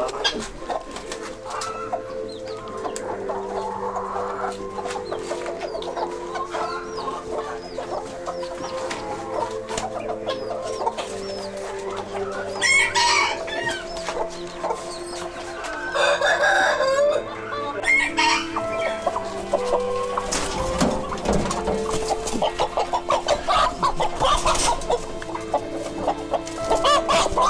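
Chickens clucking, with roosters crowing twice in louder calls of about a second each, a little before halfway and again a little past it.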